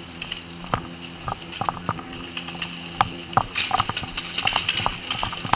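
Paintball markers firing: scattered sharp pops at irregular intervals, with a quick run of shots a little past the middle.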